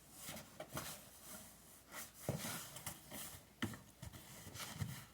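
Cardboard box being handled and opened: rustling and scraping with several sharp knocks.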